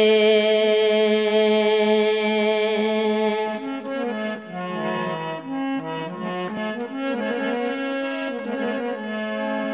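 Instrumental music of a Gojri folk song: a reedy free-reed keyboard instrument holds a chord, then from about three and a half seconds in plays a stepping melody over a steady drone.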